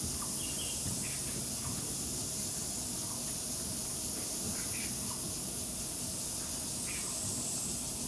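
Steady high-pitched insect chorus, typical of cicadas in summer woodland, with a few faint short chirps over a low rumble.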